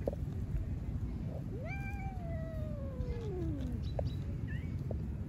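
A cat meowing: one long meow of about two seconds that rises quickly and then slides slowly down in pitch, over a steady low background rumble.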